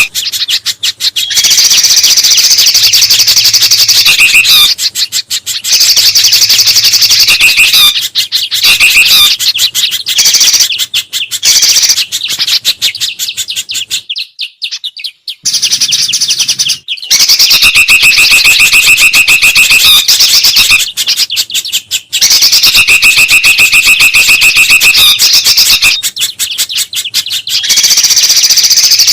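Recorded bird-lure track of busy songbird calls: loud, rapid chirping in long bursts, with a brief silent gap about halfway.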